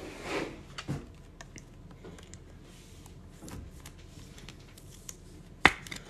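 A trading card being handled and slid into a plastic sleeve and a rigid plastic toploader: faint rustling and small plastic clicks, with one sharp click near the end.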